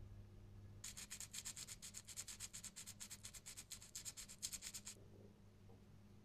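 400-grit sandpaper pinched around a thin enamelled copper wire and rubbed back and forth along it in quick, even strokes, several a second, sanding the burnt insulation off the wire's end. The rubbing starts about a second in and stops about five seconds in.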